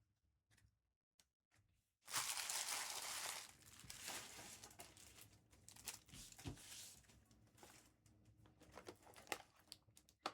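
Trading card packaging being torn open: a tear about two seconds in, then crinkling of wrappers and scattered light clicks as the cards are handled.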